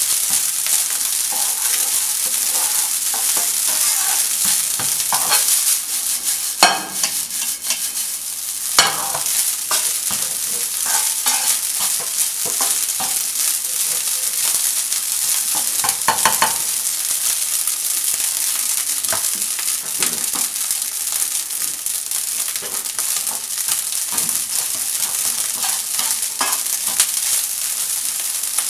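Egg fried rice sizzling in a nonstick frying pan while a spatula stirs and turns it, scraping and tapping against the pan. There are a few louder knocks, about seven, nine and sixteen seconds in.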